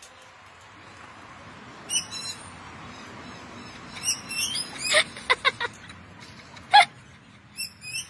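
Cockatoos calling in short bursts of sharp, high calls, several separate outbursts, with the loudest shortly before the end.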